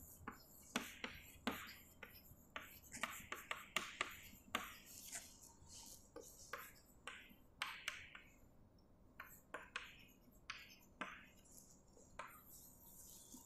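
Chalk writing on a blackboard: faint, quick, irregular taps and short scratches of the chalk against the board, coming in runs with brief pauses.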